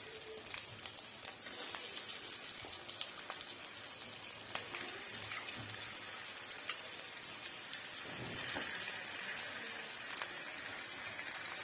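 Onion-tomato masala sizzling and crackling in hot oil in a kadai, with chicken just added, with scattered small pops and one sharper click about four and a half seconds in.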